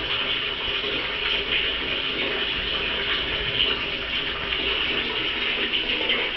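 Toilet flushing: a steady rush of water.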